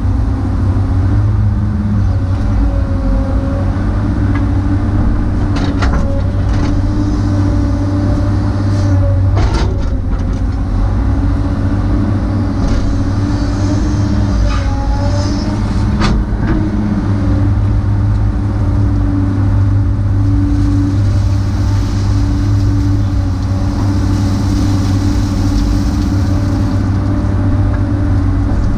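Hydraulic excavator's diesel engine running steadily under load, heard from inside the cab, with higher hydraulic tones shifting in pitch as the boom and bucket work. A few sharp knocks from the digging gear stand out over the drone.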